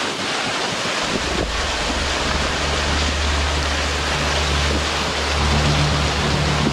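Heavy storm downpour hissing steadily on the microphone, with a low sustained music drone fading in about a second in and building near the end.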